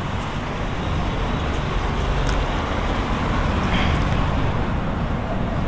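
Steady road traffic noise from a city street, with a few faint clicks.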